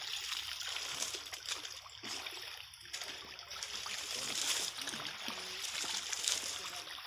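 Water splashing and sloshing as several people wade chest-deep through a river, an irregular patter of small splashes with no single loud one. Faint voices sit in the background.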